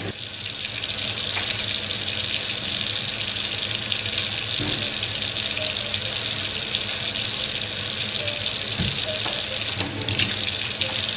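Kitchen faucet running a steady stream into a stainless steel sink, filling it with dishwater, the water splashing over hands held under the stream.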